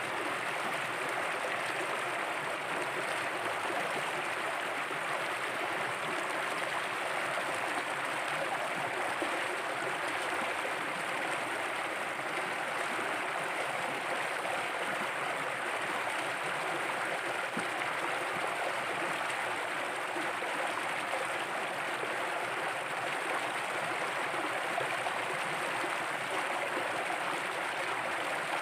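Shallow stream running over rock slabs and small cascades: a steady rush of water at an even level.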